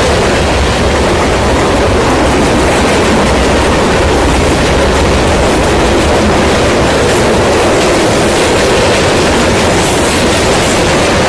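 Loud, steady rumble and clatter of a Union Pacific freight train's covered hoppers and boxcars rolling past at close range, steel wheels running on the rails.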